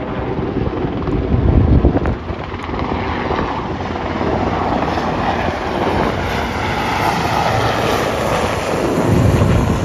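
A VH-3 Sea King presidential helicopter, with a second, smaller helicopter, flying past overhead: continuous, loud rotor and turbine noise.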